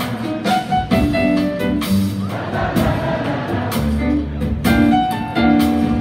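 Live acoustic jazz from a piano, bass and drums trio: piano notes over a walking low bass line, with sharp drum and cymbal hits.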